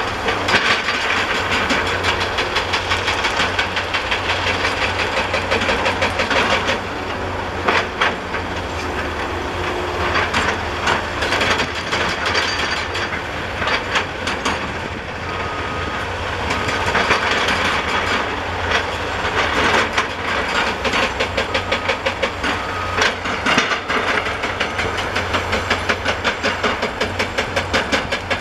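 Hydraulic rock breaker on a large tracked excavator hammering stone in rapid repeated blows, with a couple of short pauses, over the steady drone of the excavator's diesel engine.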